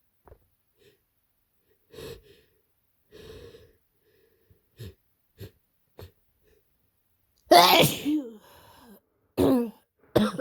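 Quiet sniffles, then two harsh sneezes from a person with a heavy head cold: the first about seven and a half seconds in and the loudest, with a voiced tail, the second about two seconds later, and a short third burst right at the end.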